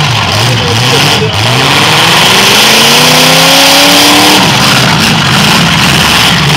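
Demolition derby cars' engines revving and accelerating. One engine climbs steadily in pitch for about three seconds, then drops off, while others rise and fall.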